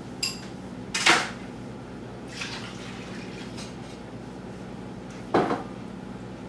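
A metal whisk clinking and knocking against a ceramic bowl and a pan: a few sharp clinks, the loudest about a second in and another near the end, over a steady low hum.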